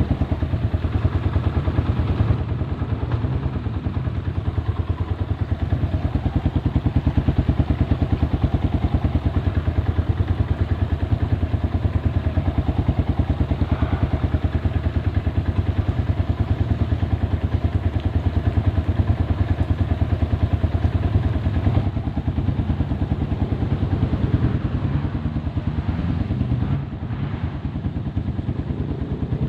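A vehicle's engine running steadily at low revs, with rapid even firing pulses; it eases off briefly near the end.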